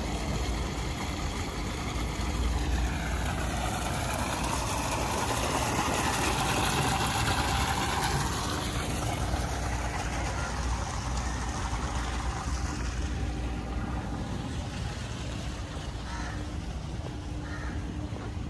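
Steady low engine rumble, with a faint hum that comes and goes.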